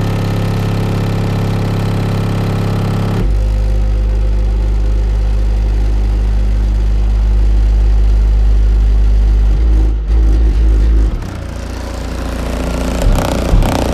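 Two Skar EVL 12-inch subwoofers in a car trunk playing loud, sustained bass notes: a higher note for about three seconds, then a deeper one near 50 Hz, the port tuning, that ends in a few short pulses about ten seconds in before the bass drops back.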